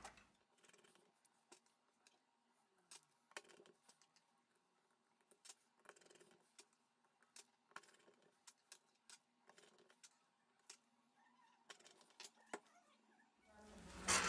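Faint, irregular small clicks and taps of hand tools working on an opened smartphone's metal frame and internal parts.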